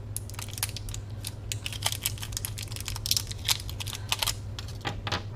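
Batteries clicking and rattling against each other and the radio's battery compartment as they are handled and fitted: a quick, irregular run of small clicks.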